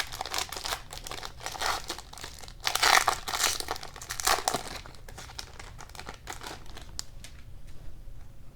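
Trading card pack wrapper crinkling as it is torn open and handled, in rustling bursts that are loudest about three seconds in, then dying down to a few faint clicks.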